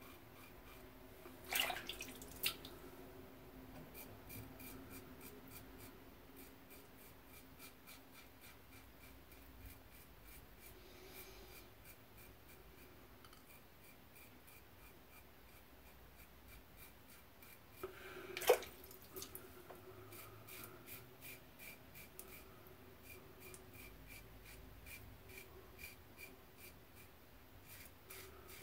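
Muhle R41 double-edge safety razor with an Astra SP blade scraping through lathered stubble around the mouth and chin, a rapid run of short scratchy strokes, several a second. A few sharper clicks stand out near the start and about two-thirds of the way through.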